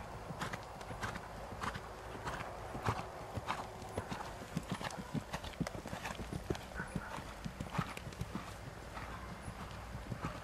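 Hooves of a ridden grey horse striking the dirt footing of a riding arena in a steady, regular rhythm of thuds as it trots and canters.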